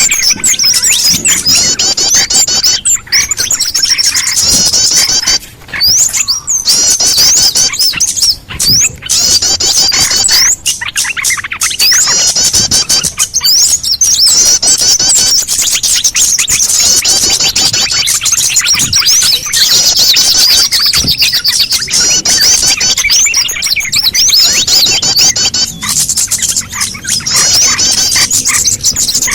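Bird-lure (pikat) recording for small birds: a loud, dense chorus of rapid high chirps and calls, made to draw small birds such as bulbuls in, with a few brief drops in level.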